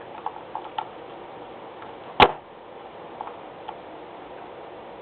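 A few light clicks over a steady low hiss, with one sharp, louder click about two seconds in.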